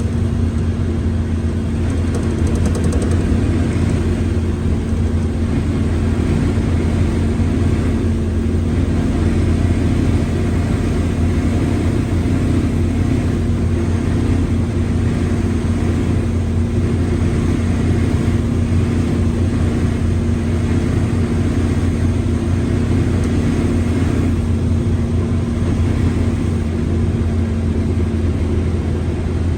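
Mercedes-Benz OF1721L bus's diesel engine running steadily, with a constant droning tone over it that the title puts down to a growling gearbox.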